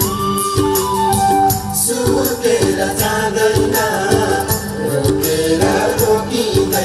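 Nepali folk song performed live: a male singer over band accompaniment, with a steady percussion beat and a melodic line that holds a high note near the start, then slides down.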